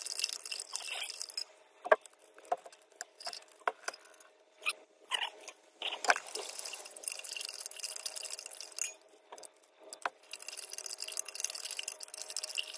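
A glass stirring rod clinking and tapping against the wall of a glass beaker of liquid, in a run of separate sharp clinks through the middle. A steady hiss sounds at the start, cuts out after about a second and a half, and returns near the end.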